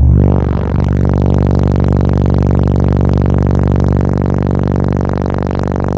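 Two Exo 18-inch subwoofers in a transmission-line (T-line) enclosure burping a 25 Hz tone, driven by four CT Sounds 1400.1 amplifiers wired to a quarter ohm. The tone starts abruptly and holds as a loud, steady low drone with a buzzy stack of overtones.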